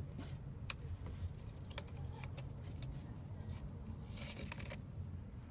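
Light scratching and rustling against a sisal-wrapped cat tower post: a few sharp clicks, then a brief rustle about four seconds in, over a steady low hum.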